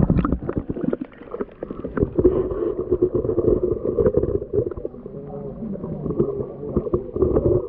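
Muffled underwater sound picked up by a GoPro inside its waterproof housing: water noise with many sharp clicks and knocks against the case.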